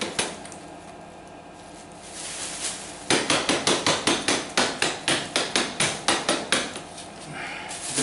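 A vacuum cleaner's plastic dust bin being knocked and shaken upside down inside a bin bag, a fast run of sharp knocks, about five or six a second, starting about three seconds in and stopping near the end, to shake loose dust and fluff that is stuck inside.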